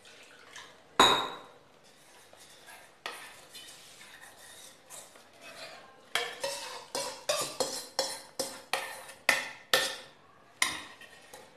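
Steel spoon scraping and tapping inside a stainless-steel bowl held over a kadhai. A single ringing metal clink comes about a second in, then scraping. From about halfway through there is a quick run of about a dozen sharp taps, roughly three a second.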